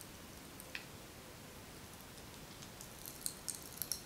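Popping candy, like Pop Rocks, crackling in a mouth: faint scattered pops and crackles that come thicker near the end.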